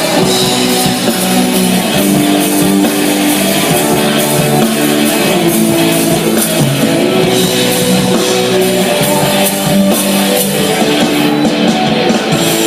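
Instrumental passage of a band's song: a lead melody of held notes that step from pitch to pitch, over guitar and a drum beat, with no singing.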